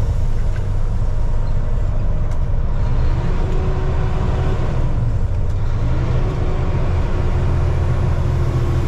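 Semi-truck's diesel engine running, heard from inside the cab as a steady low rumble. Its note rises and holds twice, around three and six seconds in.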